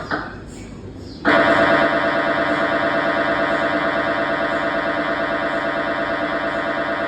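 MRI scanner's gradient coils sounding a pulse sequence: after a quieter second, a loud, steady buzzing drone starts abruptly and runs on with a fast, even pulsing.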